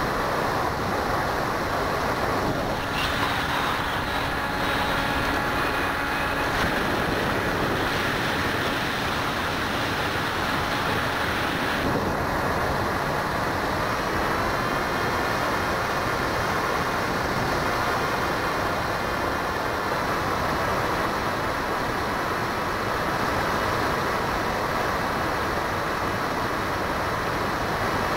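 RC plane's electric motor and propeller running in flight, a thin steady whine under rushing wind noise on an onboard keychain camera's microphone. The motor's note changes about twelve seconds in.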